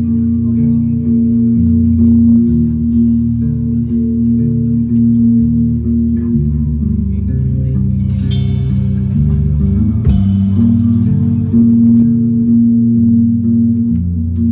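Live band music led by bass guitar and guitar, with a held low chord and a bass line moving every second or so. Two crashes ring out and fade near the middle, about two seconds apart.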